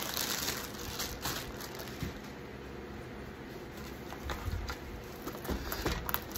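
Light rustling and crinkling as a plastic sleeve is pulled off a rolled diamond-painting canvas, then the stiff canvas rustling as it is unrolled near the end.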